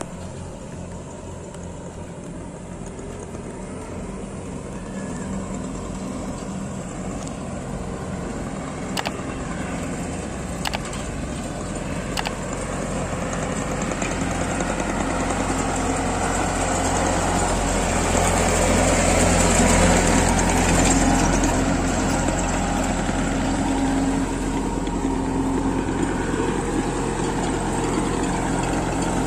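Kubota ARN 105 combine harvester's engine running, growing steadily louder over about the first twenty seconds, with three sharp clicks about a third of the way in.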